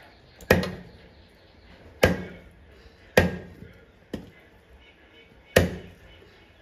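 Heavy hooked-tip knife chopping a raw eel into chunks on a thick wooden block: four hard chops at uneven gaps of one to two seconds, each a sharp thud that dies away quickly, with a lighter knock between the third and fourth.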